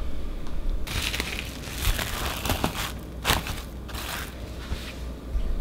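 Plastic cling film crinkling and crackling as it is pulled out and stretched tight over a baking pan, starting about a second in, in a run of sharp crackles.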